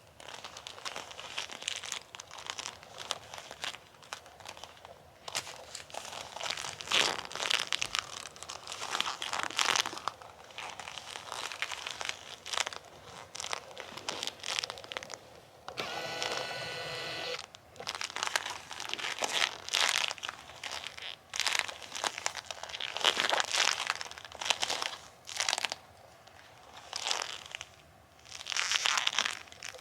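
Bilpearl rubber gloves rubbed and pressed together, giving irregular bursts of crinkly, sticky friction sounds as the rubber grips and pulls apart. About halfway through, one drawn-out squeak of rubber on rubber.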